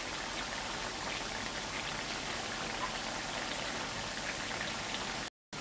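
Finely chopped seasoning frying in hot oil in a wok: a steady sizzle with fine crackles, broken by a brief dropout near the end.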